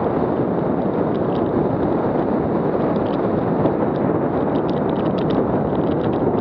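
Steady rush of wind buffeting a helmet-mounted action camera's microphone while a downhill mountain bike descends a gravel trail at speed. Tyres crunch on loose gravel throughout, with frequent small clicks and rattles.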